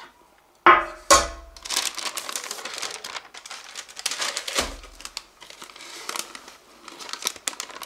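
Crinkling and rustling while a baked cheesecake is unmolded from its pan, with two sharp knocks about a second in and another just past the middle.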